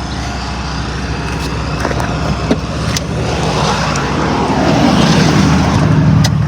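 2008 Chevy Equinox V6 engine starting on a newly installed starter and running, getting louder over the last two seconds.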